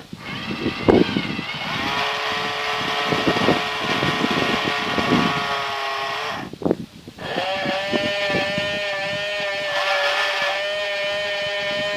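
Electric drive motors and gearing of a 1:12 radio-controlled cable excavator model whining at a steady pitch, with irregular clicking and rattling from the gears. The whine steps up about two seconds in, cuts out briefly near the middle, and starts again at a slightly higher pitch.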